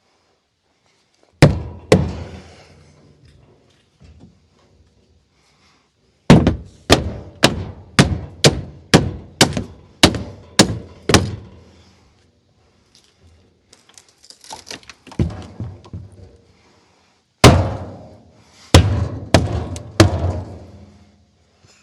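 Hammer blows knocking apart the nailed timber of a wooden shipping crate: two strikes, then a run of about ten evenly spaced blows at about two a second, lighter knocks, and another loud strike with a cluster of blows near the end.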